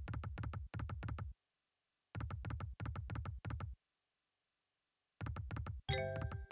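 Reel-spin sound effect of the EGT Flaming Hot Extreme online slot game on autoplay: three runs of quick electronic clicks, about six a second, each lasting a second or so with short silences between. A brief electronic chime sounds near the end.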